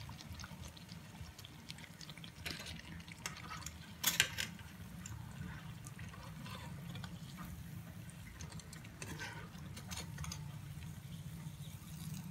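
Battered banana fritters frying in hot oil, sizzling softly, with metal tongs clicking against the wok several times, the sharpest click about four seconds in. A steady low hum runs underneath.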